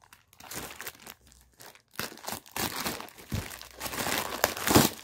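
Packaging of a mailed parcel box being opened by hand: irregular crinkling and tearing with sharp snaps, getting busier and louder toward the end.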